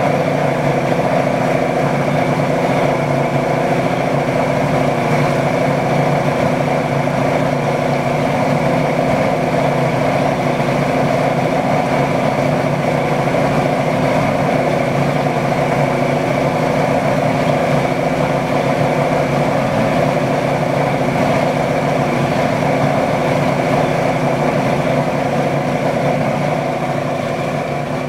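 Boat motor running steadily under way, a constant engine drone.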